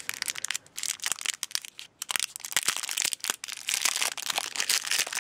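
Small clear plastic bag crinkling and crackling in a run of irregular rustles as fingers work it open, with a short lull about two seconds in.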